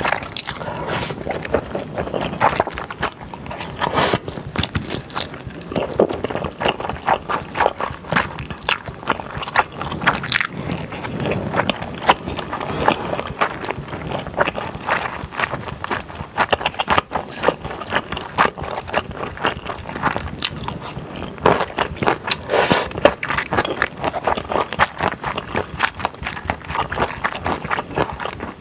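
A person chewing a mouthful of spicy beef-brisket yakisoba with wide, chewy glass noodles, close-miked, with a run of small clicks and smacks from the mouth throughout.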